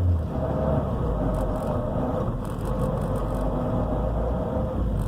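2004 Toyota Matrix XRS, six-speed manual, driving in gear. Its low engine note drops just after the start and then runs steady, with a thin, steady whine over it: the whine the owner hears in gear and under acceleration.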